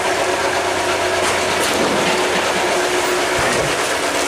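Loud, steady rush of water pouring through an open sluice gate, mixed with the hum of a boat engine running hard against the current. A few brief knocks come from the wooden hull rubbing against the gate.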